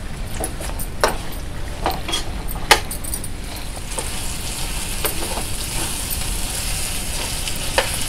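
Spoon stirring chicken pieces in masala in a cooking pot, clicking against the pot every second or two, with frying sizzle that grows stronger about halfway in.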